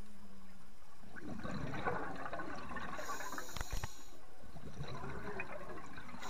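Scuba diver's exhaled air bubbling out of the regulator, heard underwater, in two long rushes with a couple of low knocks between them.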